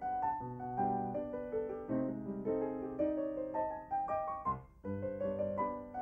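Piano music with notes struck on a steady beat, about two a second.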